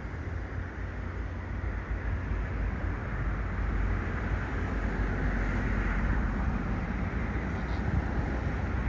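Steady outdoor background noise: a low rumble under an even hiss, swelling slightly a few seconds in, with no distinct event.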